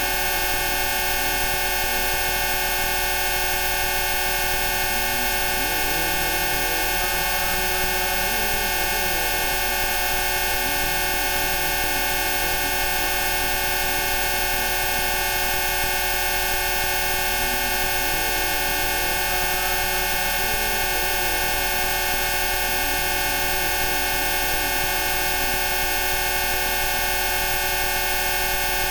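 A dense chord of many steady electronic tones, Rife healing frequencies, held at an even level without change. A faint, slowly wandering tone drifts underneath in the low range.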